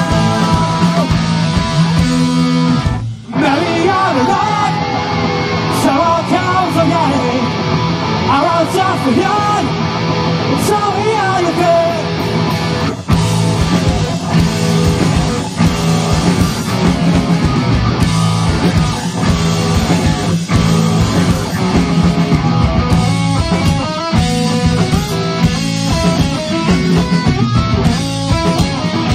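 Live rock band playing loud with electric guitar. The sound drops out briefly about three seconds in, then a wavering lead line runs over the band until about twelve seconds. After a short break near thirteen seconds the band carries on in a steady rhythm.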